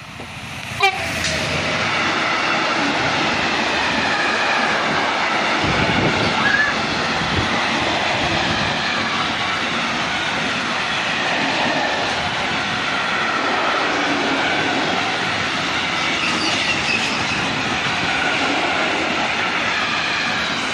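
Electric freight locomotive passing close by, with a sharp thump about a second in. A long train of tank wagons follows, rolling steadily past with wheel clatter and thin, wavering squeal from the wheels.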